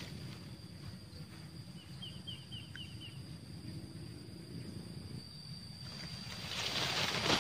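Outdoor ambience by a pond: a steady low rumble of wind with a thin, steady high whine, a bird's short trill of rapid high chirps about two seconds in, and a rustling hiss rising near the end.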